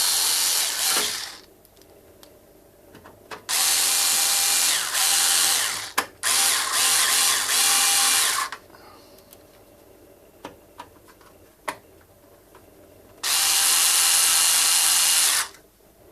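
Bosch IXO cordless screwdriver driving the case screws back into a NAS enclosure, in runs of about two seconds: one ending about a second in, two back to back in the middle, and one near the end. A few light clicks come between the runs.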